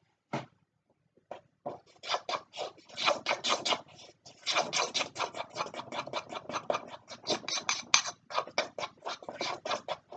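Thick icing being beaten by hand in a bowl with a utensil: a few scattered scrapes, then from about two seconds in a fast run of scraping strokes, about five a second.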